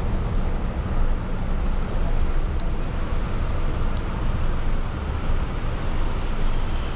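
Steady road noise from a car driving through city traffic: a low rumble with a hiss above it.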